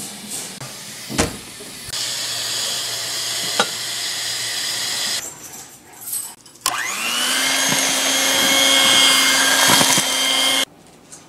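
Electric hand mixer beating pancake batter. The motor spins up with a rising whine about seven seconds in, runs steadily for about four seconds, then cuts off suddenly. Before it come a couple of knocks and a few seconds of steady whooshing noise.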